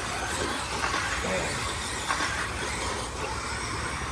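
Radio-controlled race trucks running on a dirt track: a steady hiss of motors and tyres, with faint rising and falling motor whines and a low wind rumble on the microphone.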